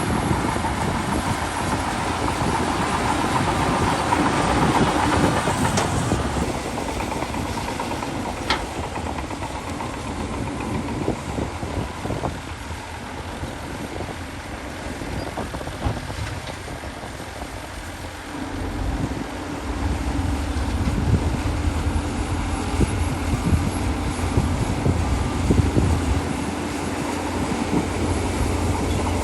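Heavy diesel earthmoving machinery working, most likely the Shantui DH17C2 bulldozer's engine with its steel tracks clattering. The noise eases off through the middle, then a deeper engine rumble comes in about two-thirds of the way through and holds.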